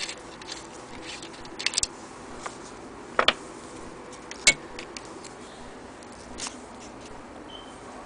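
Scattered light clicks and taps of hands handling the knobs and metal parts of a Singer 306K sewing machine, with two sharper clicks about three and four and a half seconds in. The machine's motor is not running.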